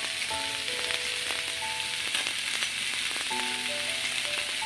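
Chopped onions and green chillies sizzling steadily as they fry in a little oil in a nonstick pan, with small crackles. Soft background music with short held notes plays underneath.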